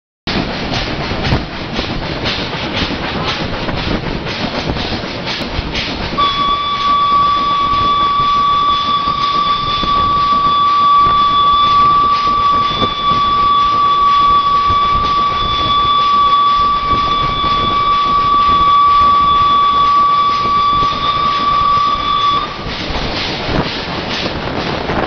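Indian Railways WP-class steam locomotive 7161, a broad-gauge 4-6-2 Pacific, running on the mainline and heard from its cab, with rail clatter and running noise. About six seconds in, the locomotive's steam whistle sounds one long, steady blast of about sixteen seconds, then stops sharply.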